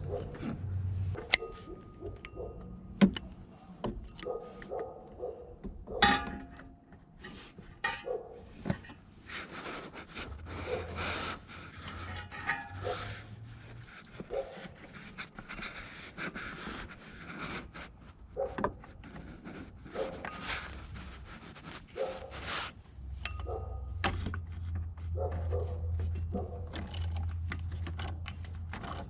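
Metal clinks, knocks and scrapes of a replacement power steering pump and hand tools being worked into place in an engine bay, with a longer stretch of scraping and rustling in the middle.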